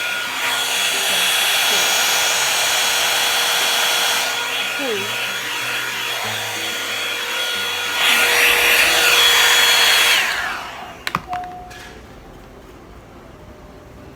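Knockoff one-step hot-air brush blow dryer running with a steady high whine over loud rushing air, louder in stretches. About ten seconds in it cuts off, the whine falling away as the motor spins down, followed by a couple of clicks.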